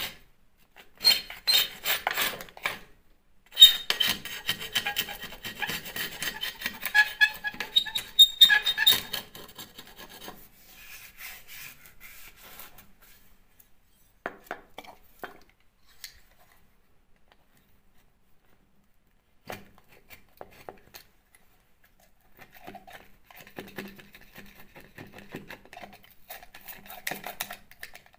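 Metal hand scraper rasping loose, water-damaged plaster and paint off a wall. The scraping is louder in a long bout over the first ten seconds, goes quiet with a few light taps, and returns softer near the end.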